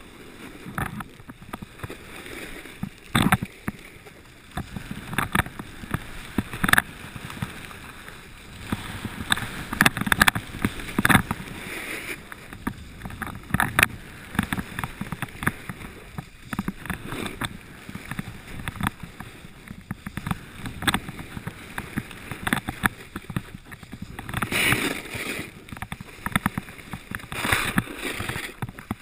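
Snowboard sliding and scraping over groomed, hard-packed snow, with a continuous rasp broken by many irregular sharp scrapes and knocks as it carves downhill; the loudest scrapes come around ten seconds in and again near the end.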